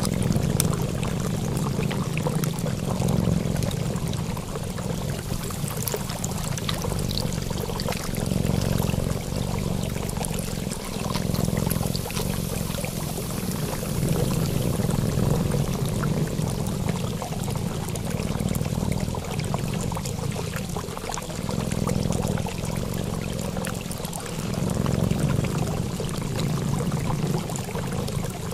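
Continuous sound of running water, gently swelling and easing every few seconds.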